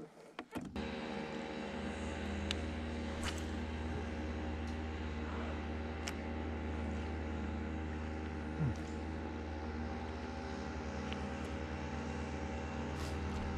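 Steady, unchanging motor hum that starts suddenly about half a second in, with a short falling squeak about nine seconds in.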